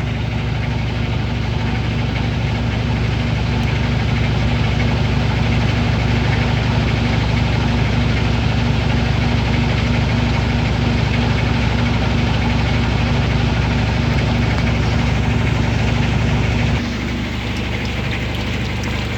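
General Electric washing machine running with a steady motor hum and no scraping, now that the bent-in bottom sheet-metal panel that rubbed the tub has been pushed clear. The hum drops to a quieter level about three seconds before the end.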